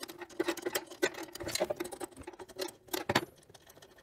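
Quick small metallic clicks and scratching as the table-stop screw and its nut under an Atika BS 205-2 band saw's table are turned by hand, with one sharper click about three seconds in.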